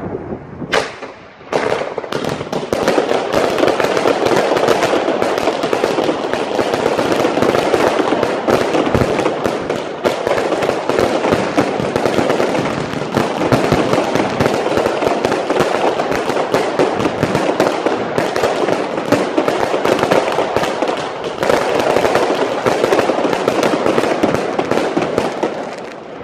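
Four consumer fireworks cakes (NET1 batteries) firing at once: a dense, continuous barrage of shots and bursting aerial shells, the bangs and crackle overlapping without a break. It starts in full about a second and a half in, after a single earlier shot, and dies away just before the end.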